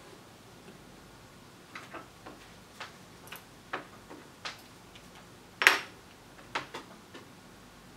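Irregular light clicks and taps from handling tools on a workbench: a circuit board being set into the clips of a helping-hands stand and a soldering iron being lifted from its metal holder. One sharper clack comes about two-thirds of the way through.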